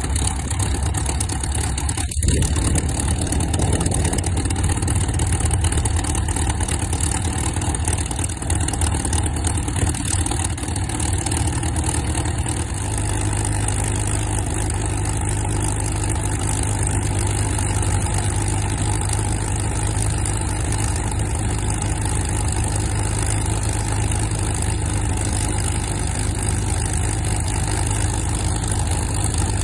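de Havilland Mosquito's twin Rolls-Royce Merlin V12 engines idling steadily on the ground, an even low drone.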